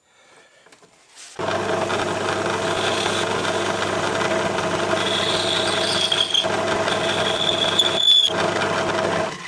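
Myford Super 7 lathe starting up about a second and a half in and running steadily while the tool turns the back face of an ER25 collet chuck. A high squeal from the cut comes and goes twice in the second half, and the lathe cuts off near the end.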